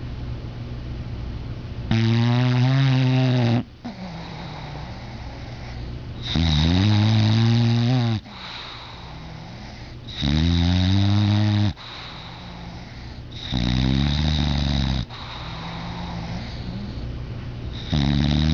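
English Bulldog snoring in its sleep: long, loud snores about every four seconds, each lasting a second and a half to two, with quieter breaths between.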